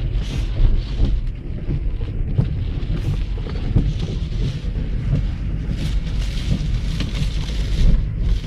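Car driving, heard from inside: a steady low road and engine rumble with wind buffeting the microphone and irregular hissing swells over it.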